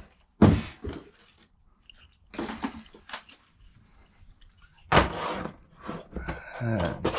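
Handling noises of packaging being put away and a heavy electric motor with its cable bundle being moved on a wooden workbench: irregular knocks and crunching, with a sharp knock about half a second in and a louder thump about five seconds in.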